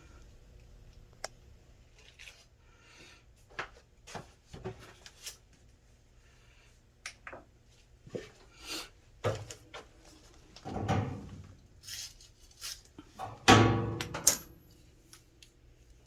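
Scattered clicks, taps and rustles of small objects being handled, with two louder knocks about eleven and fourteen seconds in.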